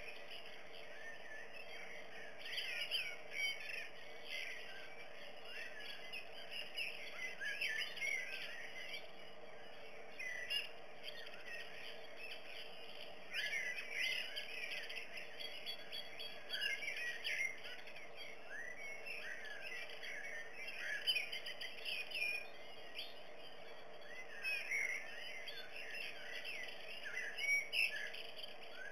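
Small birds chirping and singing, bursts of short high chirps coming and going over a faint steady hum.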